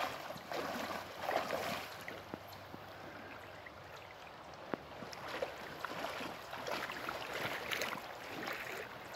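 Shallow creek water running, with irregular splashing in the shallows and one sharp click about halfway through.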